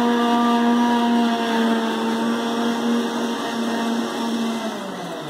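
Kitchen mixer grinder (mixie) motor running steadily with a hum, grinding mint and raw mango chutney into a paste in its jar. Near the end it is switched off and its pitch falls as it winds down.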